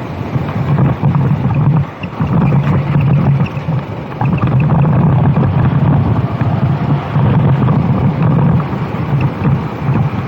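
Go-kart engine running hard on track, with wind noise on the microphone; the engine note drops briefly about two and four seconds in.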